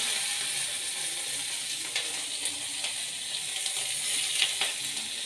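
Chopped onions frying in hot oil with mustard seeds in a kadai: a steady sizzling hiss with scattered crackles.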